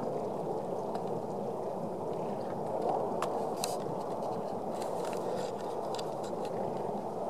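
Steady roar of the erupting La Palma volcano's vent, with a few faint crackles and clicks over it.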